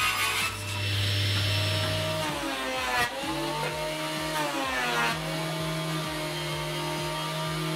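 A table saw runs with a steady hum while it crosscuts a board. About two to three seconds in the sound changes to a jointer's motor and cutterhead, running with a higher, steady hum as a board is pushed across it.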